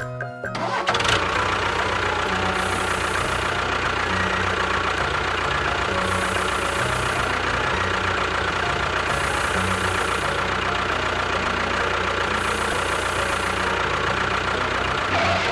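A small engine running steadily, starting about a second in and cutting off sharply near the end.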